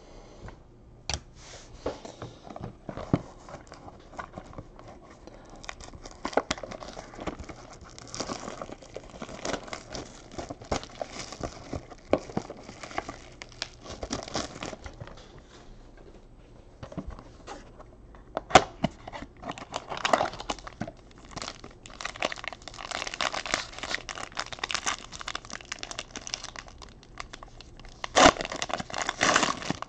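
Cellophane box wrap and the foil wrappers of Panini Spectra trading-card packs crinkling and tearing as they are opened by hand, with many sharp clicks and taps from handling. It gets busier and louder in the second half, with the loudest tearing near the end.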